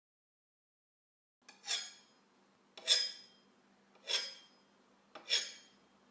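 Metal object, most likely a knife or cutlery, scraped and ringing four times at a steady pace, about one every 1.2 seconds, after a second and a half of silence. Each stroke is a light tick, then a short scrape that rings out with clear high tones.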